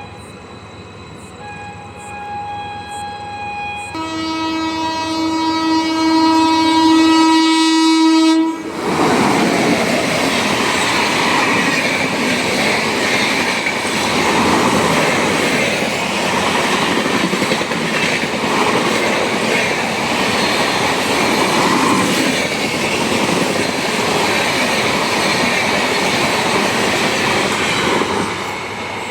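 An Indian Railways locomotive horn sounds twice in shorter blasts, then once in a loud, long blast of about four seconds that cuts off abruptly. An express train then runs past at speed close by, its wheels clattering over the rails in a steady loud rush that eases off near the end.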